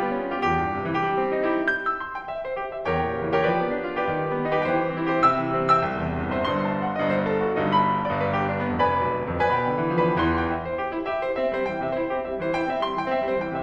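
Background piano music, with many notes and chords played at a flowing, even pace.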